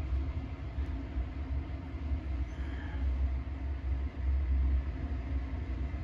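Steady low background rumble that wavers in level, with no distinct sounds over it.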